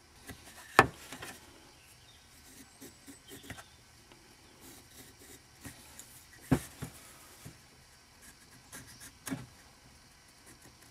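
Pencil scratching faintly along the scored lines of a square lime wood blank, with a few sharp knocks as the block is handled and turned over on the workbench: the loudest about a second in, another about six and a half seconds in and a lighter one near the end.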